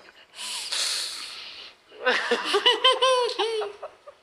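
A woman's laughter: a breathy, stifled laugh, then about two seconds in a run of high-pitched laughing bursts lasting a second and a half.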